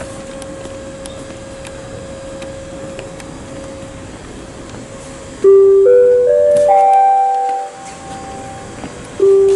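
Public-address loudspeaker chime: four clear notes stepping upward, about half a second apart, starting about halfway through and beginning again just before the end. It is the attention signal that comes before a community announcement. Before it there is a steady background hum with a faint held tone.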